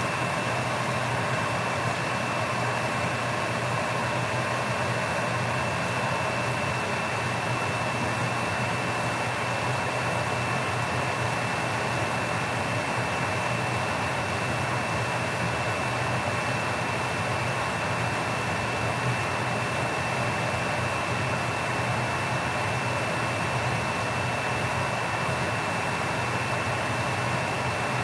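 Steady kitchen noise while a lidded pot boils on a gas stove: an even whooshing with a constant thin high whine and a low hum underneath, unchanging throughout.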